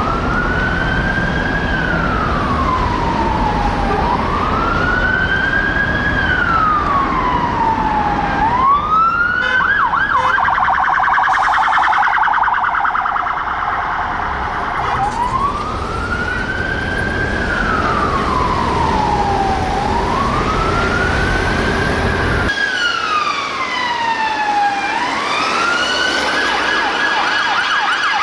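Police van siren wailing, rising and falling about every four seconds over traffic rumble, switching to a fast yelp for a few seconds midway. After a cut, a second police car's siren wails and then goes to a fast yelp near the end.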